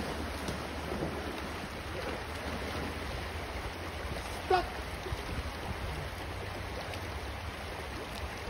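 Shallow river running over a stony bed: a steady wash of moving water, with wind rumbling on the microphone. About halfway through there is one brief pitched sound.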